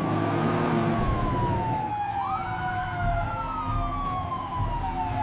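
Siren wailing in slow, drawn-out glides that fall gradually in pitch. A second wail sweeps up about two seconds in and overlaps the first, over a low rumble.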